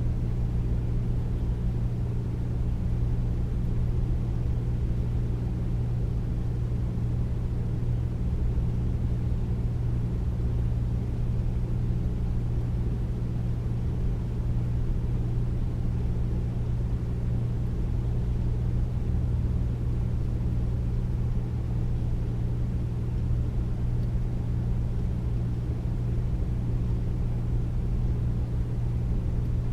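Air conditioner running: a steady deep hum with an even low rush of air, never changing.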